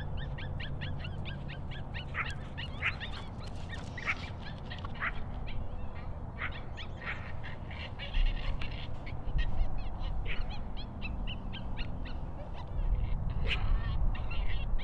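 Many short, repeated honk-like bird calls, thick at first and then more scattered, over a low steady rumble that swells about eight seconds in and again near the end.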